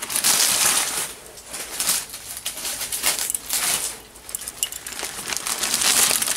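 Paper wrapping rustling and crinkling in several bursts as it is handled and pulled off raw bacon-wrapped meat. The bursts are loudest just after the start and near the end.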